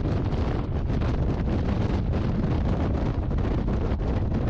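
Wind buffeting the microphone of a moving car, a steady low rumble with rapid fluttering gusts.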